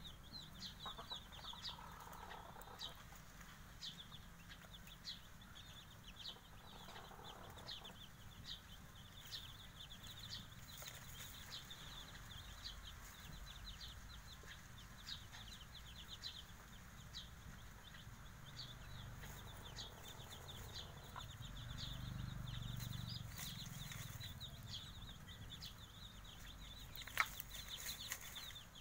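Five-day-old village chicken chicks peeping in a steady stream of short high chirps, with a few soft clucks from the mother hen. A single sharp click near the end.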